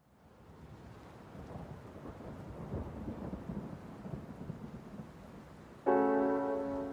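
Background music: a new track fades in with a rumbling rain-and-thunder ambience that swells up, then a piano chord comes in suddenly near the end.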